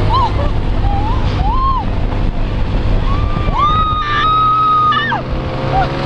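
Heavy rush and low rumble of air and machinery as a swinging fairground thrill ride sweeps through its arc. Riders give short rising-and-falling yelps, then one long high scream held for about a second and a half, starting about three and a half seconds in.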